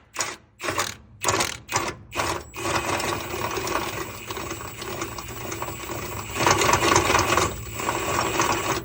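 Impact wrench hammering on a fastener on an upper control arm: several short bursts, then a continuous run of about six seconds.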